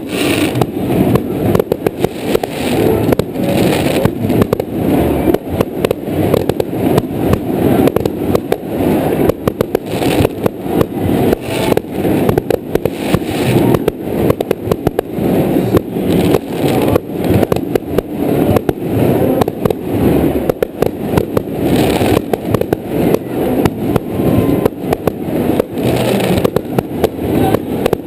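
Aerial fireworks display: shells launching and bursting in quick succession, a continuous barrage of bangs, several a second.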